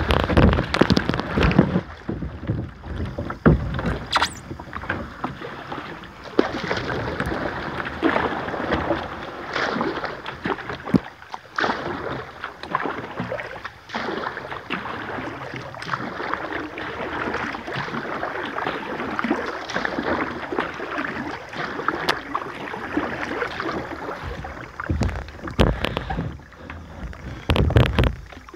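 Kayak paddle strokes splashing and dripping in slow, calm river water, coming at an irregular pace, with a few heavier low thumps near the start and near the end.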